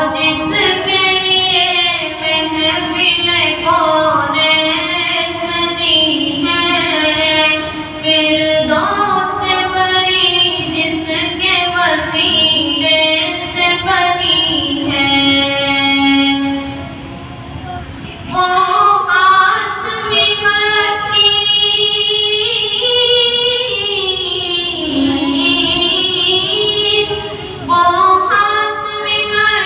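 A boy singing a naat solo into a microphone, in long, ornamented held notes. There are a few short breaks between phrases.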